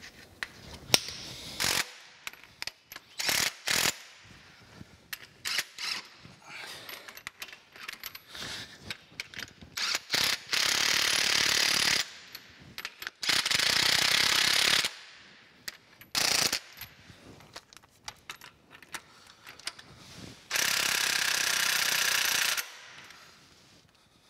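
Cordless impact driver running in anti-seized bolts under a metal planer's bed, in three runs of about two seconds each. Sharp clicks and clanks of tools and metal parts come between the runs.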